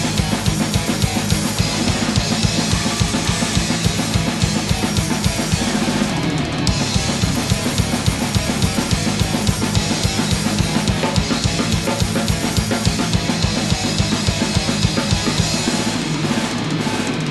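Acoustic drum kit played in a fast metal style: rapid, steady bass drum strokes under a constant wash of cymbals, with snare hits. The cymbals drop out briefly about six seconds in and come back on a crash, and thin out again near the end.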